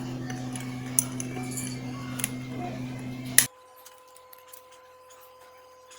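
Light metallic clicks and clinks of a hand tool working a tight nut on a motorcycle carburetor mounting, over a steady low hum that cuts off abruptly about three and a half seconds in.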